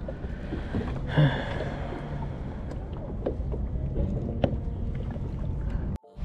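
Kayak on the water: a steady wash of water and wind on the microphone, with scattered small knocks and a brief louder sound about a second in.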